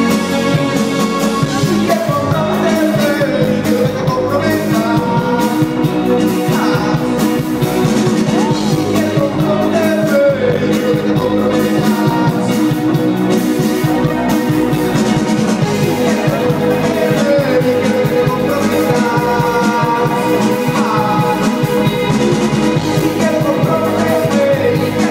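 Live rock band playing through the stage PA, heard from the audience: a singer over drums, keyboards and electric guitar.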